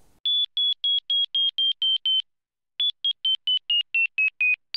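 Behringer 2600's filter self-oscillating as a clean high whistle, played as short detached notes about five a second up the keyboard. With the keyboard CV inverted, each higher key gives a slightly lower pitch, so the notes step gently downward in two runs, the second falling further, with a brief pause between them.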